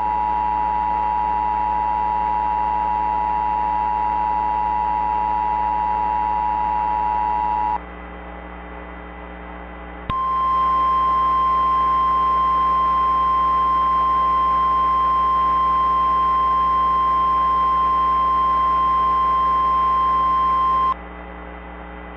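Simulated Emergency Alert System alert tones: the steady two-tone EAS attention signal held for about eight seconds, then, after a short gap, a single slightly higher steady tone like the Weather Radio alert tone for about eleven seconds, which cuts off sharply. A low steady hum lies underneath throughout.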